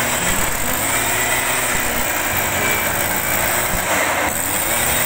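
Stihl backpack mist blower's small two-stroke engine running steadily, its fan blowing a water mist out of the nozzle.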